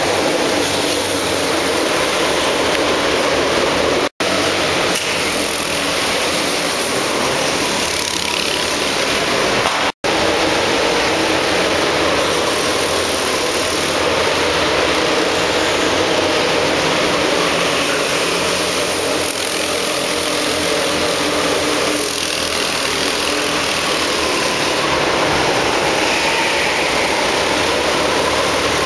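Go-kart engines running on an indoor track, a steady loud din of several karts at once inside a large hall. The sound drops out sharply for an instant about four seconds in and again about ten seconds in.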